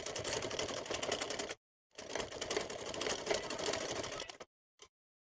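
Sewing machine running basting stitches along a suit neckline in two runs, the first about a second and a half, the second about two and a half seconds after a short pause. It stops suddenly, with one brief click just after.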